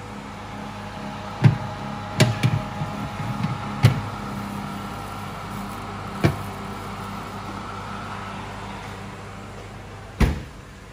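Metal baking tray clanking several times as it is slid onto the rack of a hot oven, then the oven door is pushed shut near the end, over the oven's steady hum.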